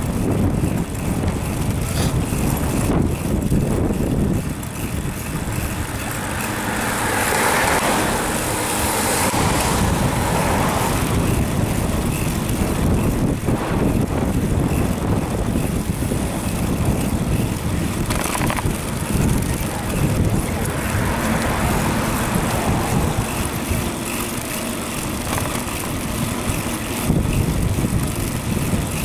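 Wind buffeting the microphone while riding a bicycle: a steady, uneven low rumble, with a louder rush of higher hiss swelling for a few seconds about a quarter of the way in.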